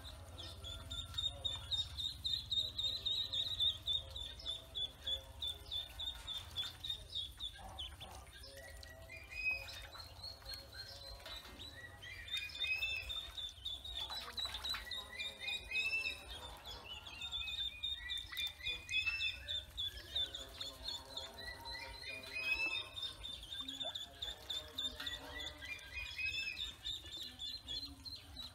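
A brood of ducklings peeping continuously: many short, high calls overlapping, some rising sharply.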